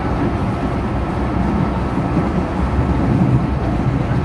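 Brasília Metro series 1000 electric train running at speed, heard from inside the passenger car: a steady low rumble.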